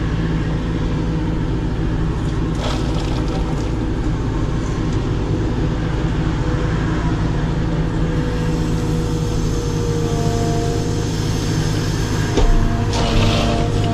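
Caterpillar 432F2 backhoe loader's diesel engine running steadily, heard from inside the cab, while the backhoe arm is worked. A hydraulic whine rises slightly in pitch and grows stronger from about eight seconds in, and a brief louder rush of noise comes near the end.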